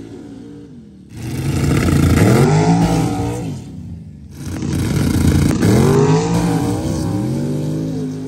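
Drag racing engines idling, then revving hard twice, each surge rising and then falling in pitch, with a short drop between the two.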